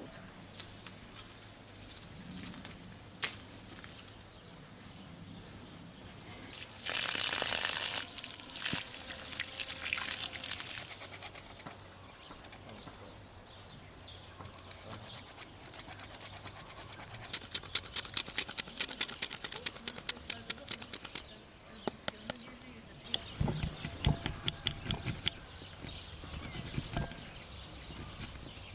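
A lemon rubbed against a plastic hand grater over a glass bowl: quick rasping strokes, several a second, in runs through the second half, with a few low knocks among them. Earlier, about seven seconds in, comes a loud brief rustle.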